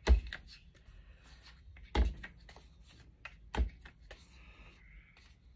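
A paper craft tag pressed down onto a craft mat to smush it into wet paint, with three soft thumps about two seconds apart and light paper rustling between them.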